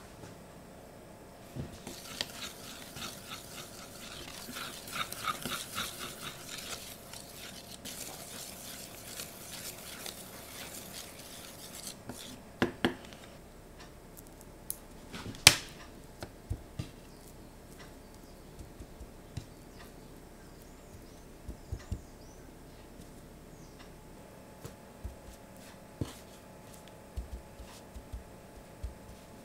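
A utensil mixing flour and smoked paprika on a stainless steel tray: quick rhythmic scraping strokes for several seconds, then a few sharp metal clicks against the tray. After that come light clicks and soft pats as chicken strips are turned and pressed in the flour with metal tongs.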